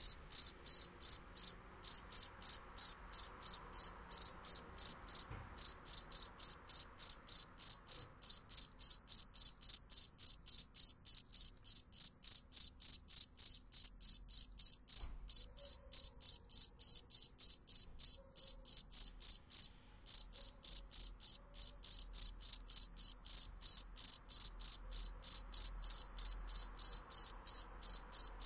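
Rapid, regular high-pitched chirping like a cricket's, about three short chirps a second, with a few brief breaks.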